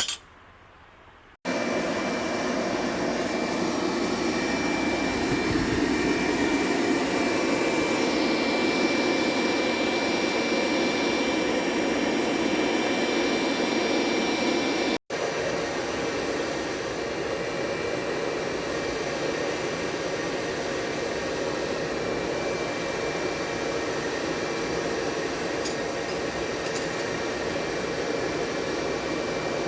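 Electric grinder running steadily with a constant high whine, sanding down a pair of forged steel blacksmithing tongs. It breaks off for an instant about halfway through, then runs on.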